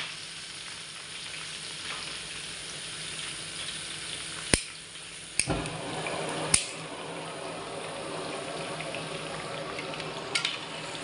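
Raw chicken pieces sizzling in hot oil over fried onions in a metal pot as they start to brown, stirred with a steel spoon. The spoon knocks sharply against the pot three times around the middle, and once more faintly near the end.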